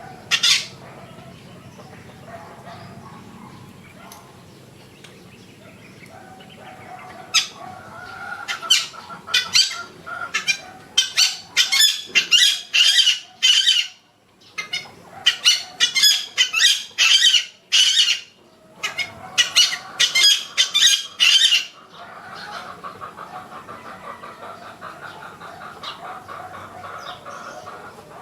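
Yellow-vented bulbul giving rapid, sharp calls in repeated bursts, starting about a quarter of the way in and stopping about three-quarters through, with a brief pause in the middle. A fainter steady layer of other sound runs underneath.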